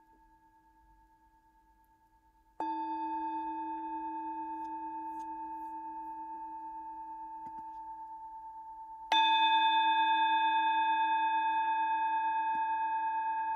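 Singing bowl struck twice with a wooden striker, once about two and a half seconds in and again, louder, about nine seconds in. Each strike rings on with a slow pulsing wobble as it fades, over the faint last ring of an earlier strike. The strikes sound the close of a guided meditation.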